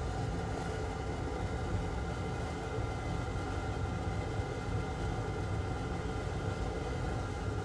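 Steady background hum and fan-like hiss of an electronics workbench, with no distinct event.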